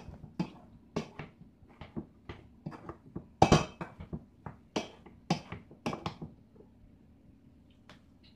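A potato masher knocking and clanking against a steel saucepan while potatoes are mashed, a dozen or so sharp knocks at an uneven pace. The loudest comes about three and a half seconds in, and the knocking dies away near the end.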